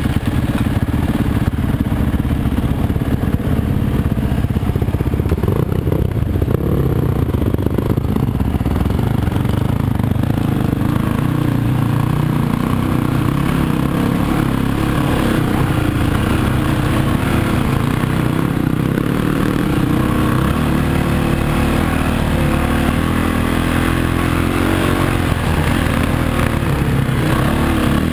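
Off-road motorcycle engine running on a rough dirt trail, its pitch rising and falling with the throttle, with rattling and clatter from the bike over uneven ground.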